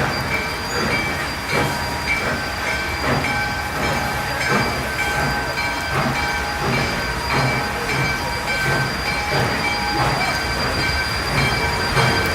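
Steam locomotive No. 28 chuffing slowly as it pulls out, its exhaust beats coming evenly about every second and a half, with steady high tones running underneath.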